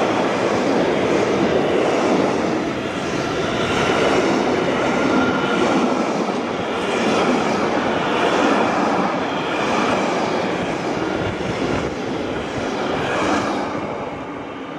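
Container freight train wagons rolling past: a steady rumble and rattle of steel wheels on rail that swells and dips in a slow pulse as the bogies go by, then fades as the last wagon passes near the end.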